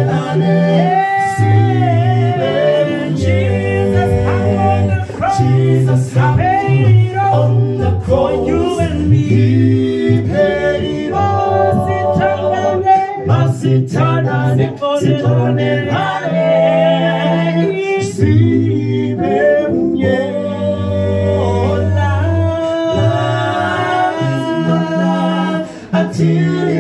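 A cappella male vocal group singing in close harmony through handheld microphones, with a low bass voice holding long notes beneath the melody.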